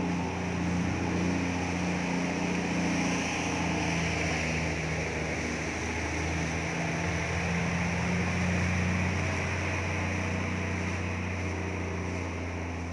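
A steady engine hum with a constant hiss over it, its low pitch wavering only slightly.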